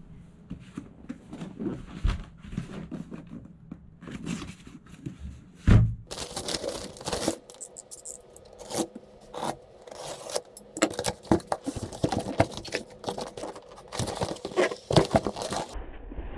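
Packaging being handled and opened: irregular scraping, tearing and rustling with many small clicks, and a single thump about six seconds in.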